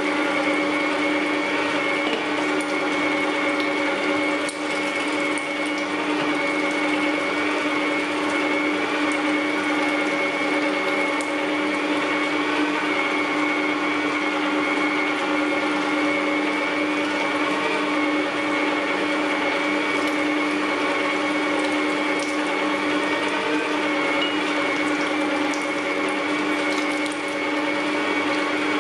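Electric meat grinder running steadily under load, with a constant, even-pitched motor hum as raw meat is forced through its grinding plate.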